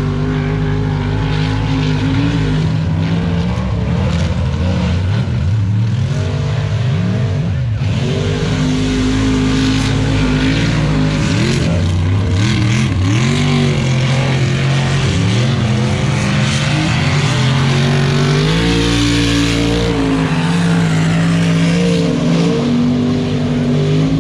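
Race truck engines revving hard on a dirt mud-racing course, their pitch climbing and dropping again and again as the trucks accelerate and back off, sometimes more than one engine heard at once. Loud throughout.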